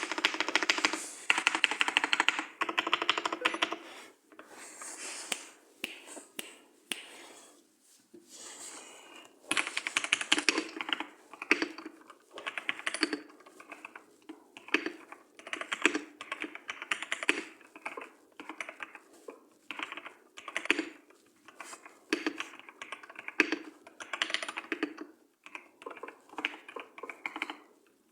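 Typing on a new computer keyboard: fast, dense runs of key clicks for the first few seconds, then shorter bursts of separate keystrokes with brief pauses between them.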